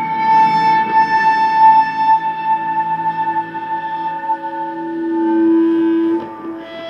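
Live band playing an ambient drone passage: sustained, steady tones with a high note held throughout, and a lower note that swells about five seconds in and then drops away.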